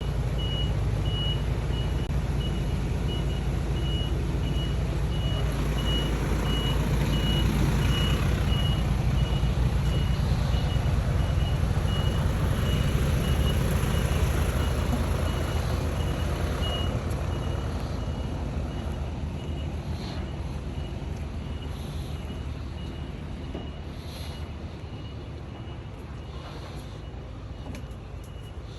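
A vehicle's reversing alarm beeping steadily at one high pitch over a heavy engine rumble, both fading away in the second half.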